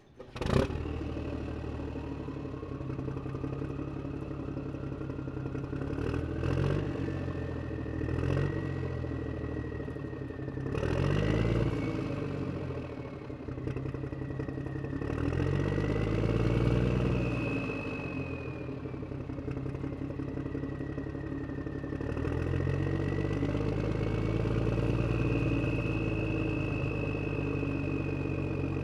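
Motor vehicle engine starting with a sharp burst about half a second in, then idling with several short revs. It settles into higher, steadier running from about 22 seconds in, as the vehicle drives away.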